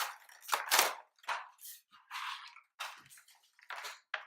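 Action figure packaging being handled and opened, plastic and cardboard crinkling and rustling in a string of short, irregular bursts as the figure is pulled out of its box.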